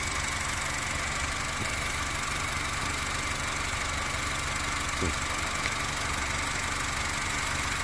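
A 2012 Honda Civic's four-cylinder engine idling steadily, with the headlights on and the original alternator, near 200,000 miles old, charging at about 14.2 volts.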